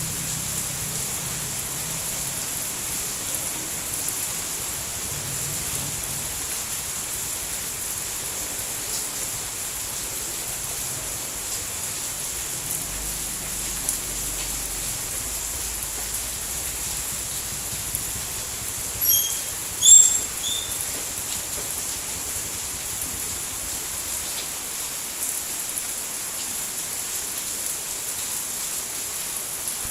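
Steady rain falling, an even high-pitched hiss. About two-thirds of the way through, a few short high chirps stand out briefly above it.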